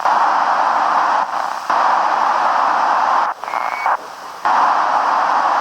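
FM radio receiver hiss from the ISS amateur radio downlink between transmissions, narrow like a radio speaker's sound. It cuts out and comes back a few times, and a short high beep sounds about three and a half seconds in.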